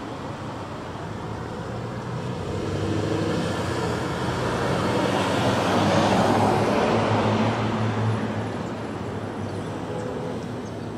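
Street traffic: a vehicle drives past close by, its engine and tyre noise swelling to a peak about halfway through and then fading, over a steady low hum of other cars.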